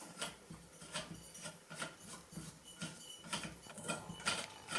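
A thumb screw being turned by hand to join a roller tube to the front part of a wheelchair training roller: a string of faint, irregular clicks and taps.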